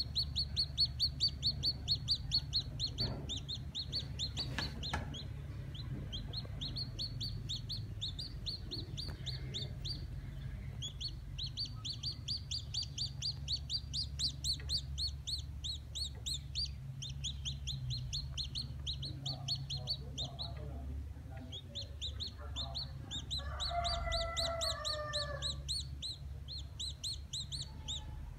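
Small black chick peeping: long strings of short, high, downward-sliding peeps at about five a second, broken by brief pauses.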